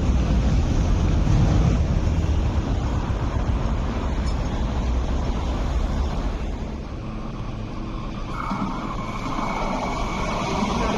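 MTR East Rail Line electric train rumbling along the track and fading as it runs off through the cutting. About eight seconds in, a train drawing into a station platform, with a higher steady whine over the rumble.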